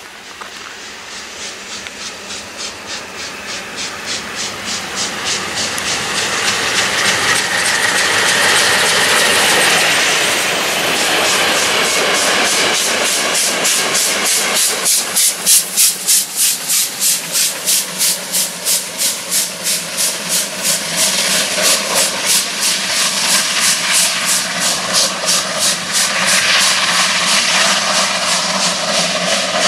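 Steam locomotive working hard under load, its exhaust chuffing in a steady rhythm, growing louder over the first several seconds as it draws near and passes with its coaches.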